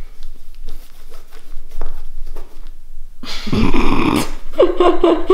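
Light crackling and rustling of the cardboard-and-plastic package holding the sofa cover as it is opened, then a loud burst of rustling about three seconds in as the contents are pulled out. Near the end a person's drawn-out voice with sliding pitch begins.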